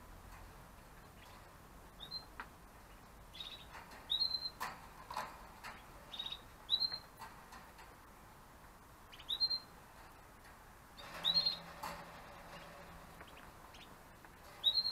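Gloster canaries giving short single chirp calls, one every second or few, about eight in all. Faint clicks and knocks come in between.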